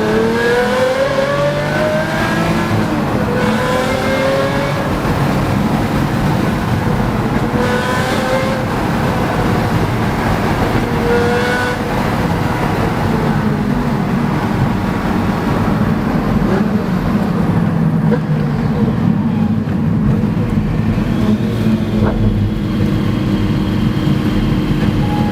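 Pagani Zonda C12 S's Mercedes-AMG V12 running loud under acceleration, its pitch climbing through the revs in the first seconds and again a couple more times, then settling into a steadier, lower drone.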